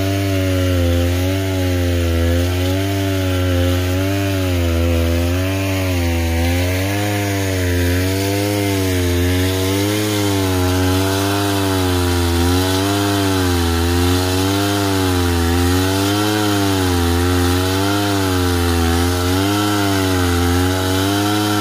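Chainsaw running under load, cutting lengthwise through a log to square it into a beam. Its engine note rises and falls in a steady rhythm about once a second as the saw works through the wood.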